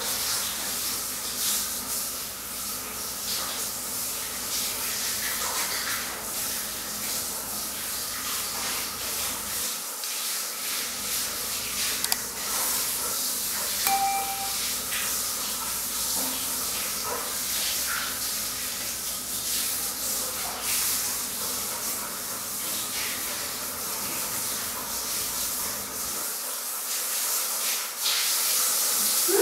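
Water spraying steadily from a handheld shower head in a tiled shower while a dog is bathed, a constant hiss.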